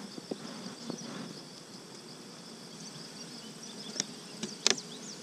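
Honey bees buzzing around the hive, with a few sharp cracks and clicks from a metal hive tool prying the inner cover loose, the loudest about four and a half seconds in.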